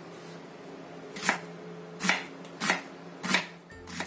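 Chef's knife chopping an onion on a wooden cutting board: several sharp knocks of the blade striking the board, starting about a second in and coming a little under a second apart.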